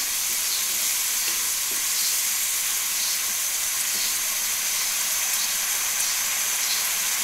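Soaked moong daal and masala sizzling steadily in ghee in a nonstick wok as it is fried down until the lentils soften.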